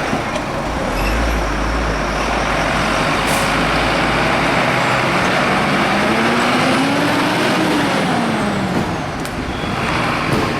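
Fire truck diesel engines running as the fire engine and ladder truck drive out of the station, with an engine tone that rises and then falls again around the middle.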